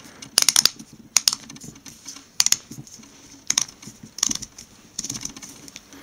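Outer plastic shell of a Neutrik Speakon cable connector being screwed on by hand, giving short runs of sharp clicks about once a second.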